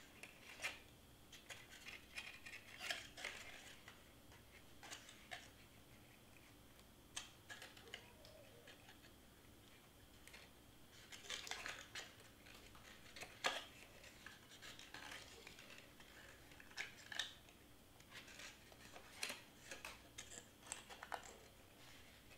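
Faint, scattered rustles and taps of cardstock pieces being handled and pushed into place, with a sharper click about halfway through.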